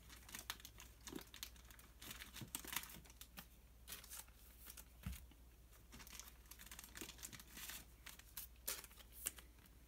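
Faint crinkling and rustling of trading-card packaging, foil and plastic handled by hand, with scattered small ticks.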